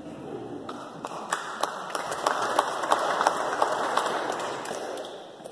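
Audience applauding: many people clapping, swelling after about a second and dying away near the end, with a few single sharp claps standing out.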